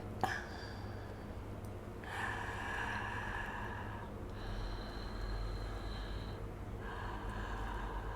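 A woman breathing audibly through her open mouth, close to the microphone: three long breaths of about two seconds each.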